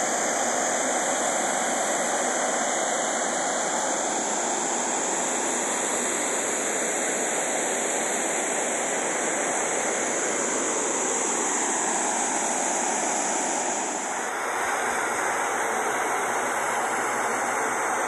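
Steady rushing of a waterfall, an even, unbroken hiss of falling water.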